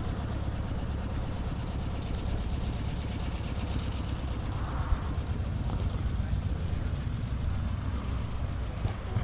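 1965 VW Beetle's air-cooled flat-four engine running steadily at low revs, with a single short knock about five seconds in.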